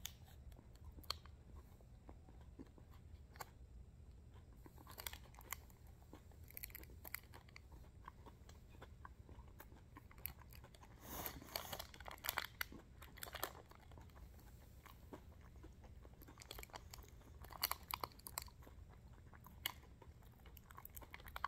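Biting and chewing a white chocolate fruity cereal crunch protein bar: faint crunching in three bouts a few seconds apart, over a low steady hum.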